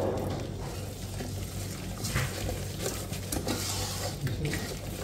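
Stirring a thick paste of dry masala powders and vegetable oil in a pot, with irregular scrapes and clicks of the utensil against the pot.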